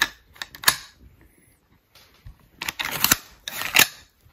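Remington 7400 semi-automatic rifle's action worked by hand and the trigger dry-fired: metallic clicks and clacks of the bolt and hammer. There is a sharp click a moment in, then a run of louder clacks in the second half.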